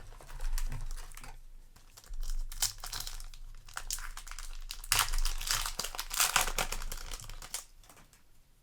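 Foil booster-pack wrapper being crinkled and torn open, in several crackly bursts, the longest about five seconds in.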